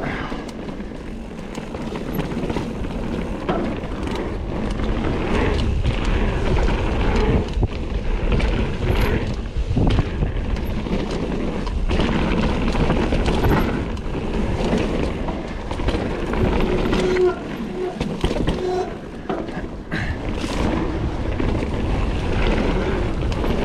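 Kona Process 153 full-suspension mountain bike riding fast down a dirt flow trail: a steady rush of tyres and wind on the helmet camera's microphone, broken by frequent knocks and rattles as the bike goes over bumps.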